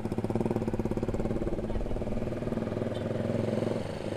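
Single-cylinder four-stroke engine of a Yamaha New Vixion Advance motorcycle running steadily as the bike rides along, with an even pulsing beat.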